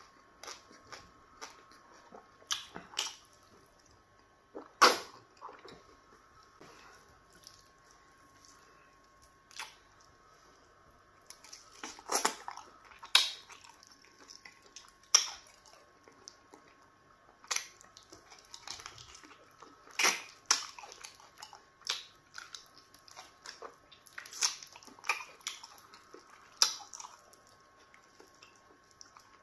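Close-up eating sounds: irregular wet smacks, clicks and chewing as okra stew and a piece of stewed meat are eaten with the fingers, over a faint steady hum.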